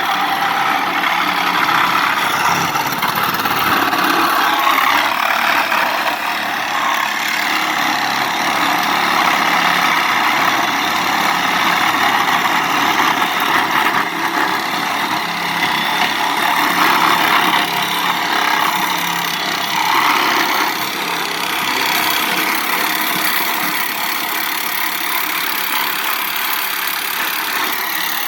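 Backhoe engine running steadily as the machine works.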